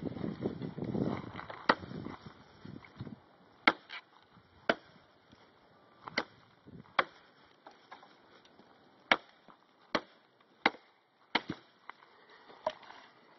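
Gerber Bear Grylls Survival Parang (a heavy machete) chopping into a log: about a dozen sharp blade strikes on wood, unevenly spaced roughly a second apart.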